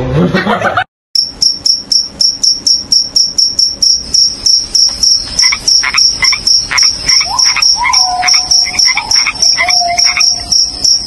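Cricket chirping, about four even chirps a second. It starts suddenly after a moment of dead silence about a second in, and a second, lower chirping joins about halfway through.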